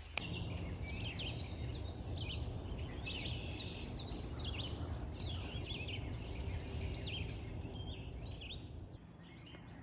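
Many birds chirping and calling at once, a dense chorus of short high chirps over a steady low hum.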